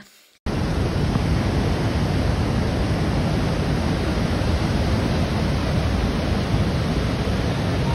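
River water pouring over a low weir and crashing through rocky falls: a loud, steady rush that starts suddenly about half a second in.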